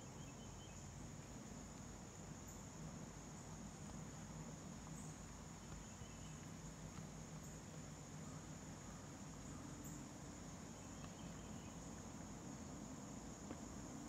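Faint, steady high-pitched chorus of insects such as crickets in the woods, over a low steady hum.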